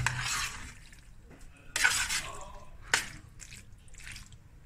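A spoon stirring saucy macaroni and mince in a baking tray: a few separate wet, squelching scrapes, the loudest right at the start and about two seconds in.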